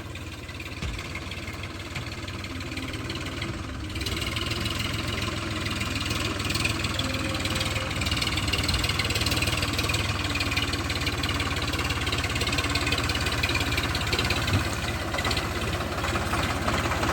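Farm tractor engine running steadily with a fast low firing rhythm, getting louder about four seconds in.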